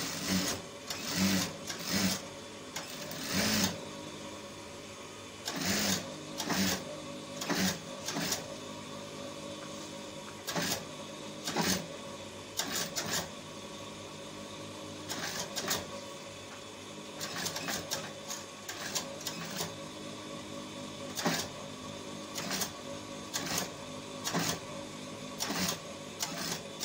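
Emel industrial sewing machine stitching in short stop-start runs, with a steady motor hum between the runs.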